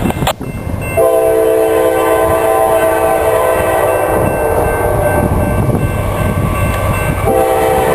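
Diesel locomotive's multi-note air horn sounding a long chord from about a second in, fading after about three seconds, then blowing again near the end, as the freight train approaches.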